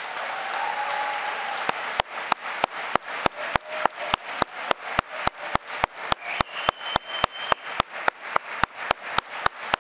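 Audience applause that settles, about two seconds in, into rhythmic clapping in unison at about three claps a second.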